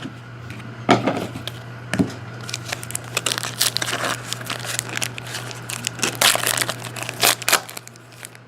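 A trading-card pack wrapper being torn open and crinkled by hand, in irregular crackles, over a steady low hum.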